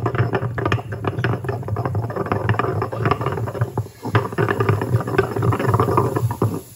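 Granite pestle pounding and mashing a wet mixture in a granite mortar: a fast, steady run of knocks with low thuds, dipping briefly about four seconds in and stopping just before the end.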